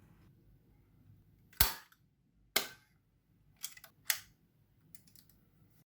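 Sharp mechanical clicks and snaps from handling a Canon Canonet 28 metal-bodied rangefinder film camera: two loud clicks about a second apart, then a few smaller clicks and one more sharp snap, with faint ticks near the end.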